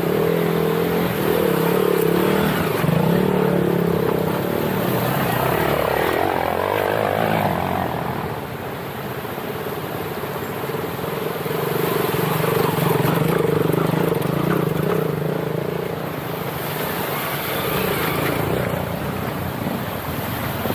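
Motorcycle engine running under load on an off-road track, its pitch rising and falling with the throttle, easing off briefly about eight seconds in.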